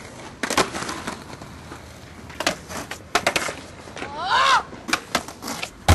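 Skateboard on concrete: wheels rolling and a string of sharp clacks and pops from the board's tail and trucks hitting the ground and ledge. A short voice-like cry that rises and falls about four seconds in.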